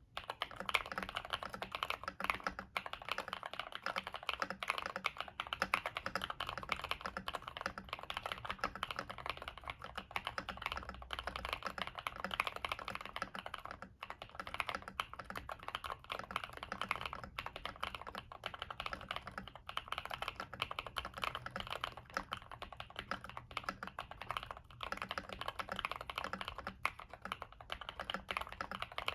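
Continuous fast typing on a KBD67 Lite mechanical keyboard with stock Emogogo Cream linear switches, an FR4 plate and Cherry-profile keycaps, tape-modded and case-foamed: a dense stream of key presses with a few brief pauses.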